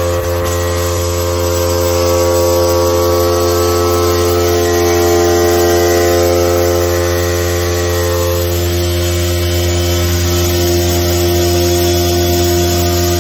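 Electric vibration exciter of an HB3000+ vibratory stress relief machine, clamped to a welded steel plate and running at about 5,230 rpm during stress relief treatment, giving a loud, steady hum. The upper overtones shift slightly about two-thirds of the way through.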